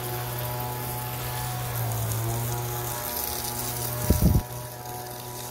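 A steady machine hum: a low drone with several overtones, dipping slightly in pitch about two seconds in. A few brief low thumps come a little after four seconds.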